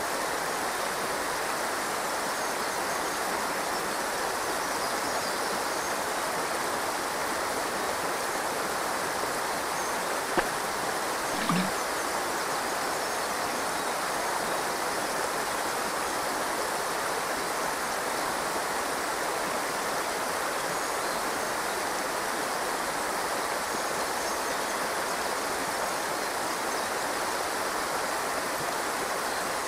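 Shallow river water rushing steadily over rocks in a riffle. One sharp click comes about ten seconds in, followed by a brief low knock.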